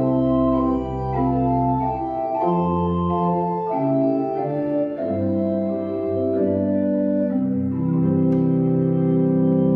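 Church organ playing a slow progression of sustained full chords over a deep bass, changing chord about once a second, then holding a long chord near the end.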